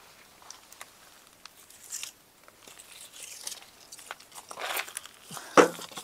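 Rustling and crinkling of packaging being handled, with scattered small clicks and knocks and one louder knock about five and a half seconds in.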